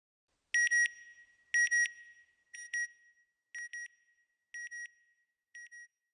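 Electronic alarm beeping in quick double beeps, about one pair a second, six pairs in all, each quieter than the last so that it fades away.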